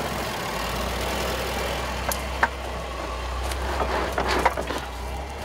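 2014 Range Rover Sport crawling slowly over a dirt trail: a steady low engine hum, with the tyres crunching over dirt and twigs in scattered sharp clicks.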